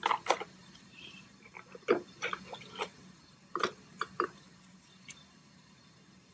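Scattered small clicks, snaps and rubbing as floss drags a rubber dam down through the tight contacts between a dentiform's teeth, handled with gloved fingers. The sounds come irregularly, a few each second at most, with short gaps between them.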